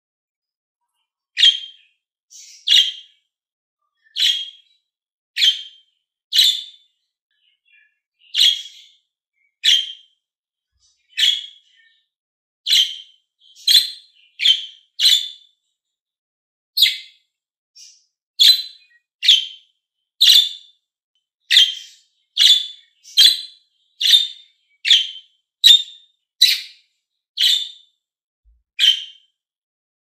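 Budgerigar chirping: short, sharp single calls, each brief and separate. They come about every second at first and come faster in the second half.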